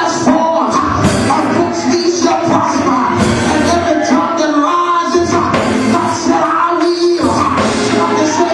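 Upbeat gospel praise music with a full band and steady drum beat, and voices singing.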